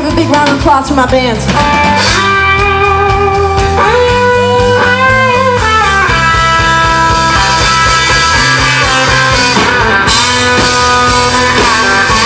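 Live country-rock band playing an instrumental break: a lead electric guitar plays long held and bending notes over drums and bass.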